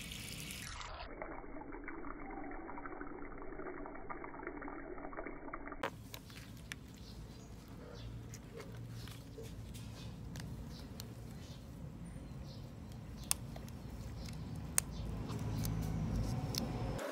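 Muffled, dull outdoor sound for about the first six seconds, then light clicks and rustling of deflated rubber balloons being handled on pavement, over a low steady outdoor background.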